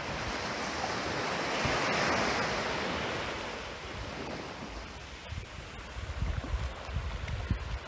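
Small waves on a calm sea breaking and washing up a sandy shore. One swell of surf builds to a peak about two seconds in and ebbs away. Gusts of wind rumble on the microphone near the end.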